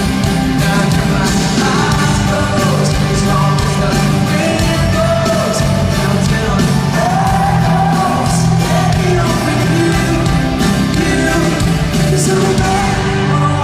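Live pop-rock band playing a song, with a lead vocal singing over it, heard loud from the audience through a phone microphone.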